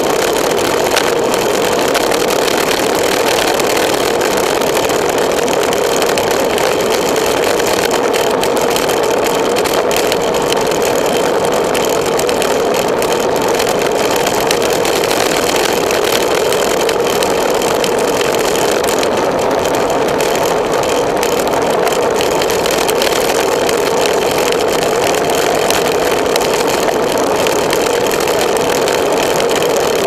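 Steady rush of wind over a bicycle-mounted camera's microphone, with tyre and road noise, during a fast downhill descent.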